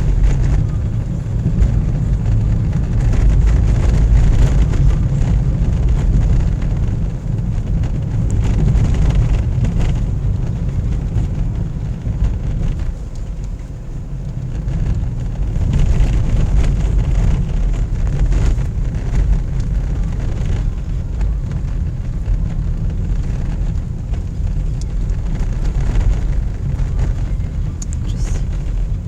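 Car driving along a snowy winter road: a steady low rumble of engine and tyres, with brief louder swells now and then.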